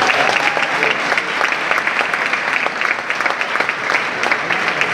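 Audience applauding: many hands clapping steadily in a dense patter, greeting the announcement of an award winner.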